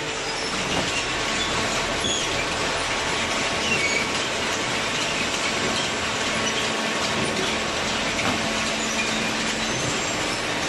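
Hydraulic waste-paper baler machinery running: a steady mechanical noise with a constant hum and scattered short, high squeaks.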